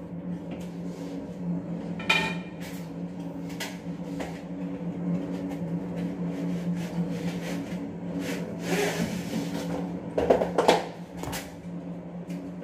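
Scattered clicks and knocks from handling the parts of a tube-light fixture in an elevator ceiling, with a scraping rattle about nine seconds in and a cluster of knocks near the end, over a steady low hum.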